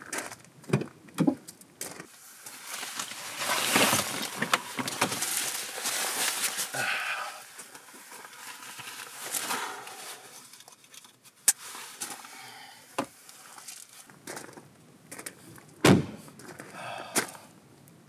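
Gear being handled at a pickup truck: rustling of clothing and a backpack, footsteps on gravel, and scattered clicks and knocks. The truck's door shuts with a heavy thump about two seconds before the end.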